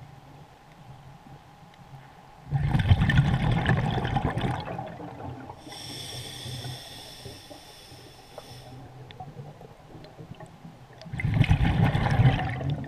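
A scuba diver breathing through a regulator, heard underwater. Exhaled bubbles rush out loudly about two and a half seconds in and again near the end, with a softer inhale hiss through the regulator in between.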